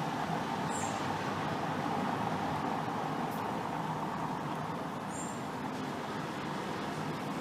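Steady background rumble of street traffic, with two brief high chirps, one about a second in and one about five seconds in.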